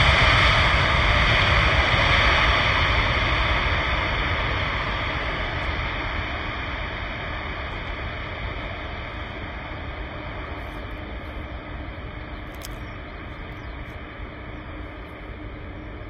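Airbus A380's four Engine Alliance GP7200 turbofans running as the airliner rolls away down the runway. Their rushing noise fades steadily as the aircraft draws off.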